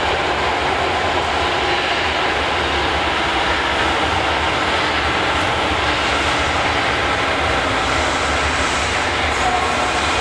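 Osaka Subway Midosuji Line train, silver cars with a maroon stripe, running along the station platform: a steady noise of wheels and traction motors.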